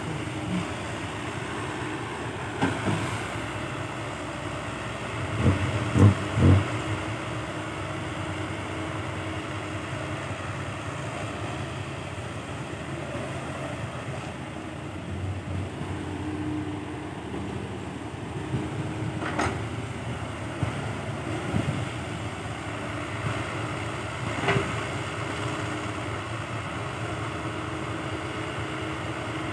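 Hydraulic excavator's diesel engine running steadily as it loads earth into a six-wheel dump truck. There are clunks of the bucket and of dirt dropping into the truck bed; the loudest is a double knock about six seconds in, and smaller ones come a few times later.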